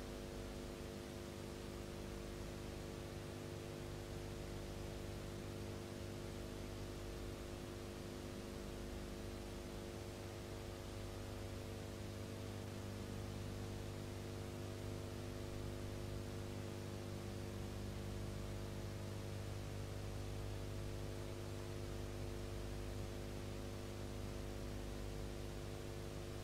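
Steady electrical hum with a constant hiss underneath: noise from the transfer of a silent film, with no other sound.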